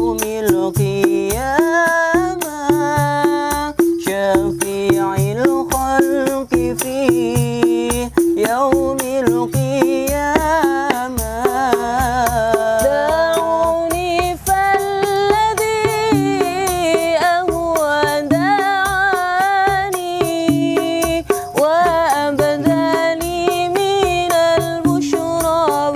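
Live sholawat music from street buskers: a wavering melody line over steady hand percussion, in a break between sung verses.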